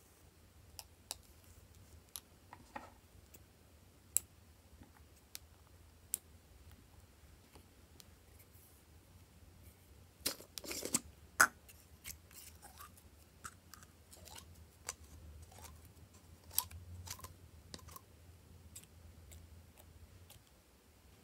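Scattered sharp plastic clicks and taps from handling lipstick tubes and a plastic slime jar. About ten seconds in comes a louder cluster of crackling snaps as the jar's lid is twisted open, followed by faint sticky crackles of slime being worked by hand.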